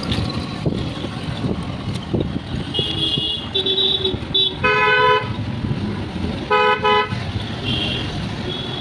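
Vehicle horns tooting in street traffic over the rumble of a moving ride: a few short, high toots, then a louder horn honk about five seconds in and two quick honks a second and a half later.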